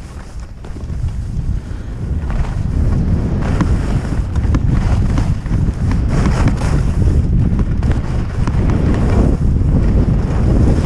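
Heavy wind buffeting on an action camera's microphone as a skier descends a piste at speed, growing louder over the first few seconds. Through it, ski edges scrape and hiss on the packed snow in repeated surges, about once a second, with the turns.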